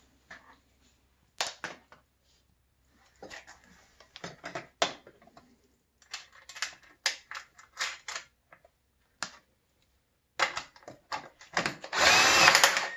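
Sharp metallic clicks and knocks of hand tools as a long mounting bolt is fitted and tightened on a motorcycle exhaust silencer, in irregular clusters with a louder, denser run of rapid clicking near the end.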